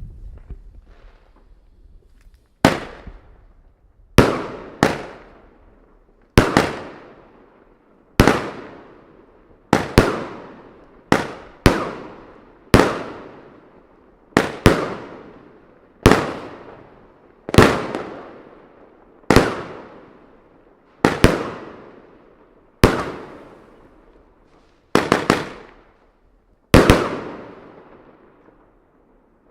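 Consumer fireworks cake of 1.2-inch peony shells firing about twenty shots, one every one to two seconds with a few in quick pairs, each a sharp bang with a fading tail.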